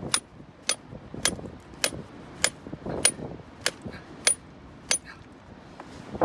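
Hammer striking a steel cold chisel with a yellow hand guard into hard rock, nine steady blows a little under two a second, each with a sharp metallic ring. The blows stop about five seconds in.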